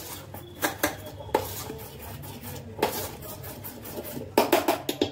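A spoon stirring thick gram-flour dhokla batter in a stainless steel bowl, scraping and clinking irregularly against the bowl, with a quick cluster of clinks near the end. A steady low hum runs underneath.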